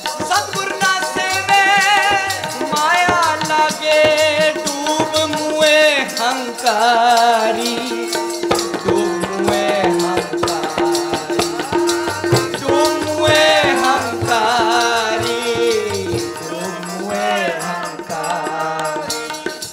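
Sikh kirtan music: a voice singing long wavering notes over harmonium and tabla, with a dense rattling percussion beat.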